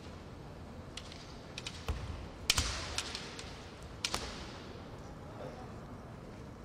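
Kendo exchange: bamboo shinai clacking against each other and striking armour, with thuds of stamping feet on a wooden floor. The loudest hit comes about two and a half seconds in, and two quick knocks follow near four seconds.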